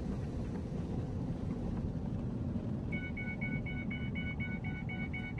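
A vehicle's engine and tyres rumbling steadily on a muddy dirt road, heard from inside the cab. About three seconds in, a dashboard warning chime starts beeping rapidly, about four beeps a second.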